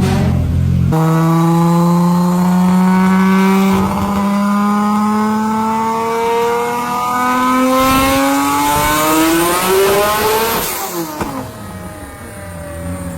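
Mk4 Toyota Supra's 2JZ straight-six under hard acceleration: one engine note climbs steadily in pitch for about ten seconds, then swings down and fades as the car passes by. A different, lower engine sound runs briefly at the start before a cut.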